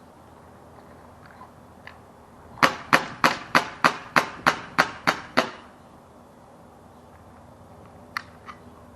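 A BB gun fired ten times in rapid succession, about three shots a second, each a sharp crack. Two faint clicks follow near the end.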